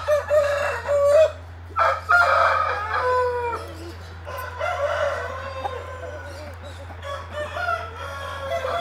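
Several roosters crowing one after another, their calls overlapping, with some clucking among them. A steady low hum runs underneath.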